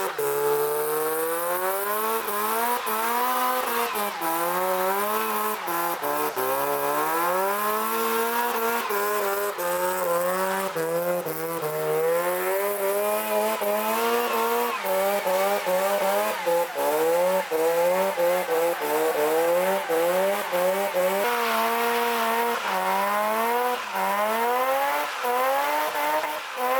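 Car engine under hard driving, its revs climbing and dropping again every second or two.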